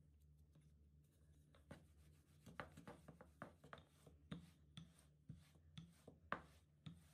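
A series of light knocks and taps, roughly two a second, starting about two seconds in, over a faint low hum.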